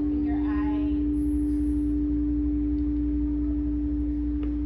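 Quartz crystal singing bowls ringing in a steady, sustained tone that holds unchanged, with a fainter higher tone above it.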